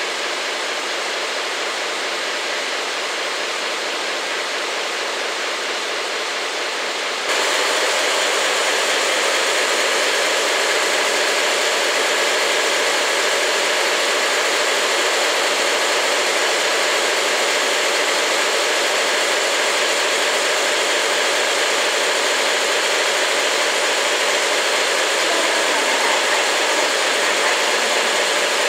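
Diesel-hydraulic locomotive's V12 diesel engine idling steadily while the locomotive stands before departure. It gets suddenly louder about seven seconds in, then holds steady.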